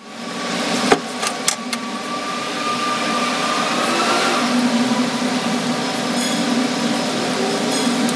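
Steady rushing noise with a low hum, and a few sharp clicks about a second in.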